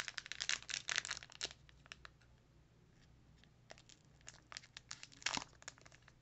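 Foil Pokémon booster pack wrapper crinkling as it is handled: clusters of short crackles, a pause of about two seconds, then more crackles with one louder crinkle about five seconds in.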